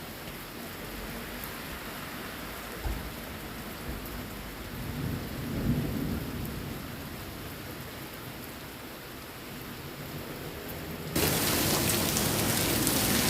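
Steady heavy rain with a low rumble of thunder swelling about five to six seconds in. Near the end the rain abruptly becomes much louder.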